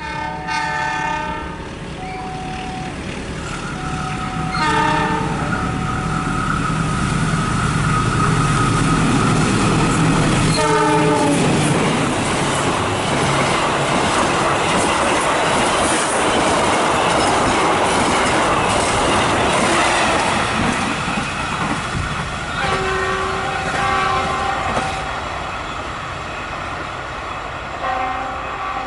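Train passing through a station, sounding its horn in several blasts, one of them dropping in pitch as the train goes by. Loud wheel and running noise in the middle, then more horn blasts near the end.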